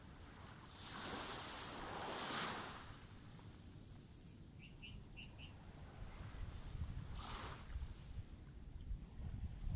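Small waves washing up on a sandy beach, the wash swelling about a second in and again about seven seconds in. A bird chirps four quick times in the middle, and wind rumbles on the microphone in the second half.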